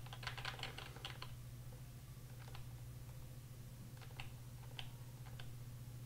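Computer keyboard keys being pressed: a quick run of keystrokes in the first second, then a few single key presses spaced out, over a steady low hum.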